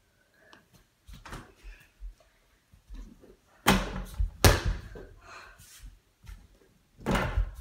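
Nerf foam basketball hitting an over-the-door mini hoop's backboard and the door it hangs on. Two sharp knocks come a little under a second apart about four seconds in, and another comes near the end.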